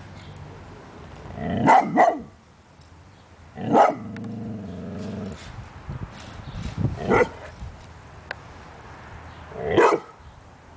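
German shorthaired pointer barking with a toy football held in its mouth: two barks close together about two seconds in, then single barks near four, seven and ten seconds, with low growling between them.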